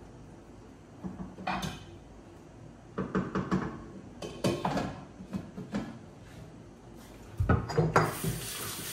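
Kitchen clatter: several short clinks and knocks of a utensil and lid against a steel cooking pot, a louder knock near the end, then a faucet starts running into a stainless steel sink.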